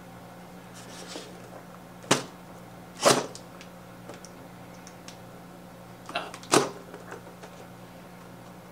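Large fixed-blade knife stabbing into a cardboard shipping box to open it: four sharp punctures, about 2 and 3 seconds in, then two close together just after 6 seconds.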